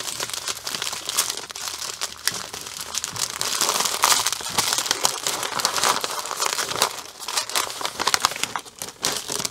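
Clear plastic packaging and paper crinkling and rustling in irregular crackles as hands fold and handle a bagged strip of diamond-painting drills, its sheet and a cellophane sleeve. The crinkling is loudest about midway through.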